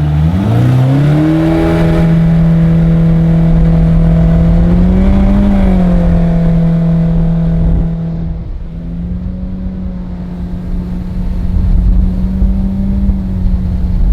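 Jet boat engine under way, revving up about a second in and then holding a steady pitch, with a brief dip and drop in level about eight seconds in.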